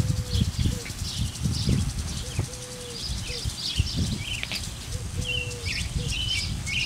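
A dove cooing a repeated three-note phrase (a short note, a long one, then a short one) about every two to two and a half seconds, over scattered chirps of small birds and low rustling.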